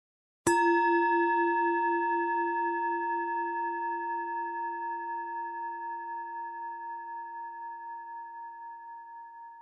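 A singing bowl struck once, about half a second in, then ringing with a slow wavering beat and fading away. Its lowest tone dies out first near the end while a higher tone rings on.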